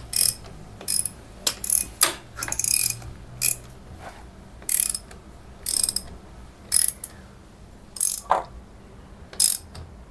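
Ratchet wrench clicking in short, repeated bursts, roughly one a second, as a new NGK spark plug is wound into the cylinder head of a Kawasaki ZX130 engine.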